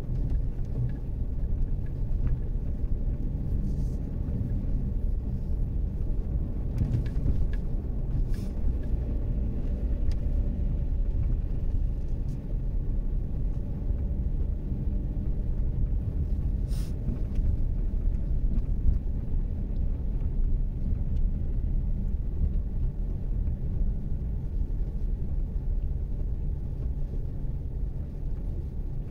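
Haval Jolion driving uphill, heard from inside the cabin: a steady low rumble of engine and road noise, with a couple of faint ticks.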